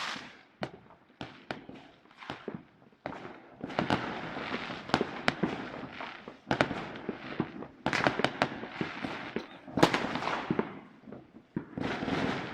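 New Year's fireworks and firecrackers going off: a continuous run of sharp bangs and crackling, denser from about three and a half seconds in, with the loudest bang near ten seconds.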